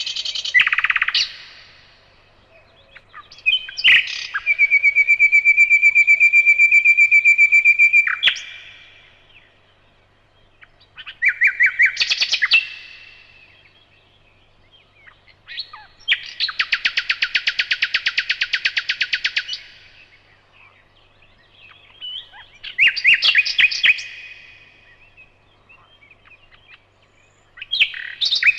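Nightingale singing: a series of separate song phrases a second or two apart, several of them long, fast runs of rapidly repeated notes, others shorter mixed flourishes.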